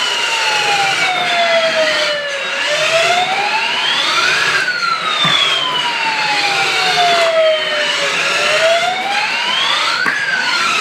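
Remote-control toy fire truck's electronic siren wailing: a tone that rises over about two seconds and falls slowly over about three and a half, in two full cycles.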